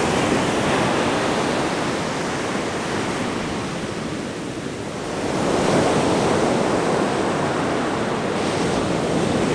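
Ocean surf breaking on a beach: a steady wash of waves, with a fresh wave swelling and breaking about five and a half seconds in. Wind buffets the microphone.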